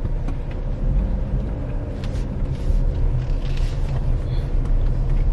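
Car engine running at idle, heard from inside the cabin as a steady low rumble.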